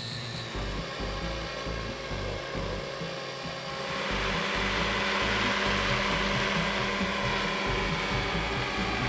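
Radio-controlled scale model helicopter in flight: a low, uneven rumble at first, then from about four seconds in a louder steady whine and hiss of its motor and rotors.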